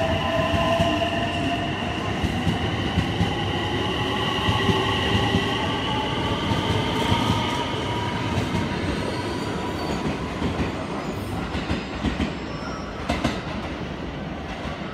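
JR limited express electric train pulling out and speeding up past the platform: a whine of several tones that slowly rise in pitch as it gathers speed, over rolling wheel rumble. Near the end it fades, with a few sharp clicks from the wheels over rail joints.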